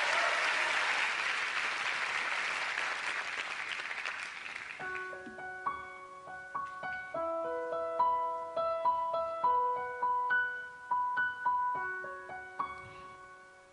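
Audience applause fading away over the first four seconds or so. Then a slow piano introduction of spaced single notes and chords, played on a Roland RD-700 digital stage piano.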